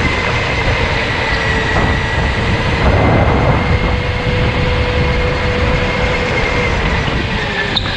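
Electric go-kart's motor whining at a nearly steady pitch over a constant rushing noise as the kart drives, the pitch dipping slightly near the end.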